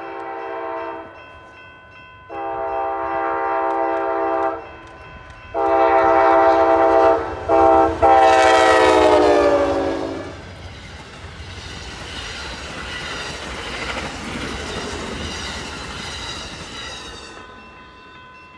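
The Amtrak California Zephyr's locomotive horn sounds a crossing sequence of long, long, short, long blasts as the train passes at speed. The pitch of the last blast drops as the train goes by, then the steady rush and clatter of the passenger cars on the rails follows and fades.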